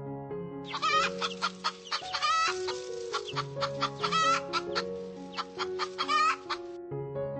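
Hens clucking in a quick run of short calls over background music. The clucking starts under a second in and stops about a second before the end.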